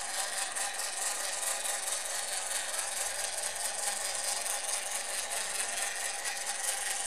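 Steady whir of a small electric motor turning a rotating display stand.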